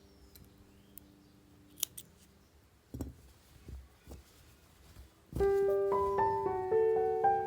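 A few faint scissor snips and soft handling knocks on a worktable, then background piano music starts loudly about five seconds in.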